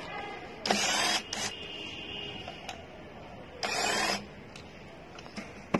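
Cordless drill-driver running twice for about half a second, about three seconds apart, turning the screws of the electric scooter deck's plastic bottom plate; each run is a short motor whine that bends in pitch.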